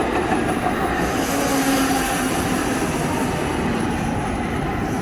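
Train running: a loud steady rail noise with faint whining tones that glide slowly lower.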